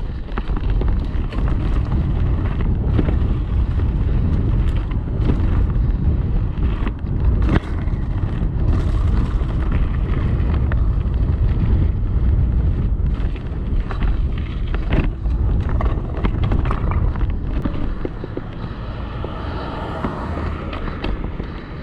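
Wind buffeting the microphone and a steady tyre rumble as a downhill mountain bike is ridden fast on city streets, with frequent short clicks and rattles from the bike.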